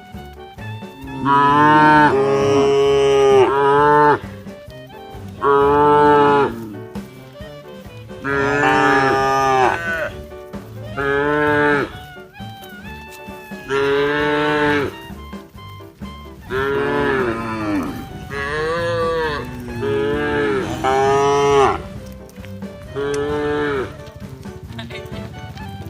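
A cow mooing again and again: about nine drawn-out moos of one to two seconds each, some bending in pitch, with short pauses between them.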